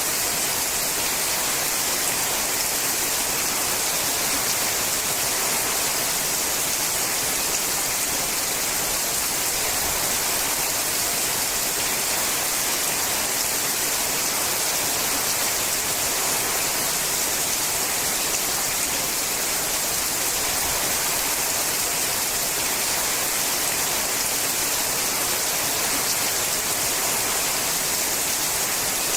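Steady rain falling on a sheet-metal roof, a dense, even hiss with no individual drops or gusts standing out.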